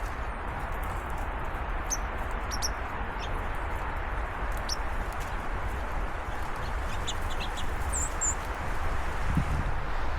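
Small birds chirping in short, high calls scattered through the first eight seconds or so, over a steady outdoor rush with a low rumble.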